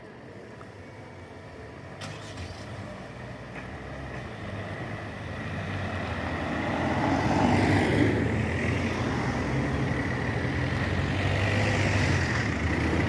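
Engines of queued cars and a van pulling away and driving across, the rumble and tyre noise growing louder from about two seconds in, with a faint click about two seconds in.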